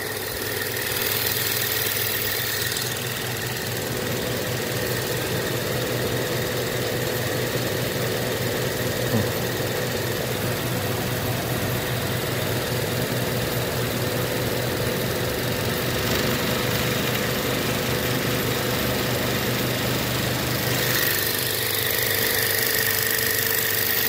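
Used inverter-drive heat pump compressor running on a variable frequency drive with a steady hum and heavy vibration. The compressor had been condemned for excessive vibration, and the owner now suspects it is bad after all.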